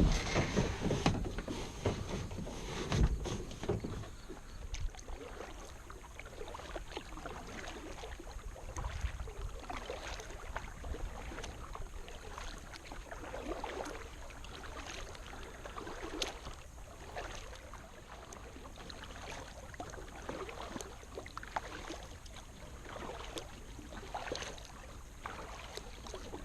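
Kayak paddle dipping and splashing water, with small splashes and drips throughout. Stronger low thumps in the first few seconds.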